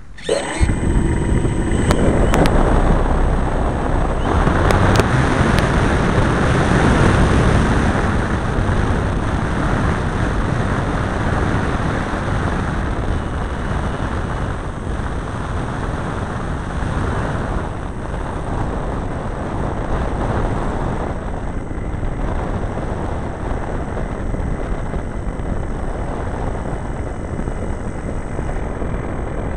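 Large RC model airplane's engine and propeller heard from a camera mounted on the plane. The engine opens up suddenly about half a second in and runs loud at high power, with wind rushing over the airframe. The power eases slightly after about twelve seconds.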